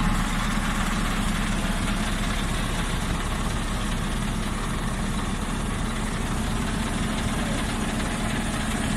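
Scania R730 truck's V8 diesel engine idling steadily, a low, even rumble.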